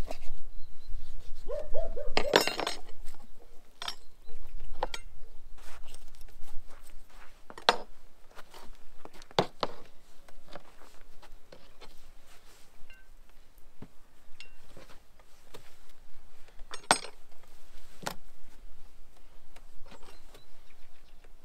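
Butcher's knife working through a whole goat carcass on a wooden table: scattered clicks and taps of the blade against bone and the tabletop, the loudest a little over two seconds in.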